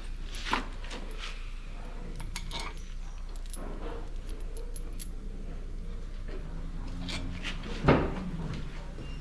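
Scattered light metallic clinks and taps, with one louder knock near the end, over a low steady hum.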